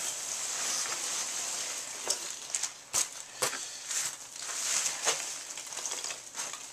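Polystyrene packing peanuts rustling and shifting in a cardboard box as a hand digs through them, with a few sharp crackles at irregular moments.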